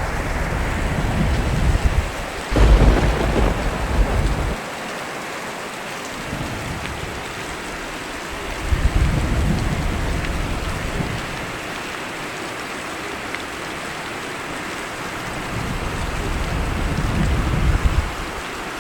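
Steady rain with thunder: a loud clap about two and a half seconds in rumbles on for a couple of seconds, followed by two softer rolling rumbles, one around nine seconds in and one near the end.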